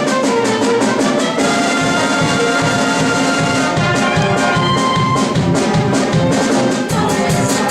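Brass-led show music from the musical's band: trumpets and trombones over a steady drum beat.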